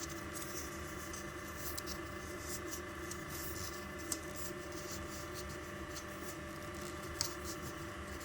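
Quiet hand-work sounds of PTFE tape being wound onto a flexible tap connector's thread: faint rustling and a few light clicks, over a steady background hum.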